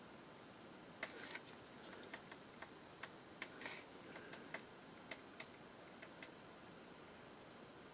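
Faint, irregular small clicks and taps from handling a paint brush and a miniature on its painting holder, about a dozen of them with uneven gaps, stopping about six seconds in. A faint steady high whine sits under them.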